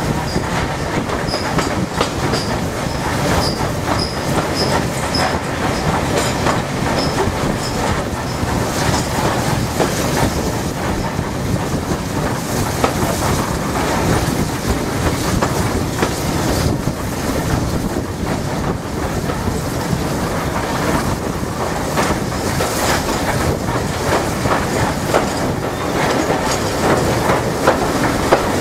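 Steam locomotive rolling down a gradient, heard from the footplate: a steady rumble of the running gear with the clatter of wheels over rail joints. A faint, regularly repeating high squeak runs through the first third.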